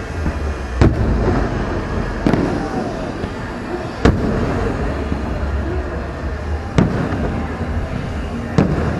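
Aerial fireworks shells bursting in the sky, five sharp booms spread unevenly over about nine seconds, with a continuous din between them.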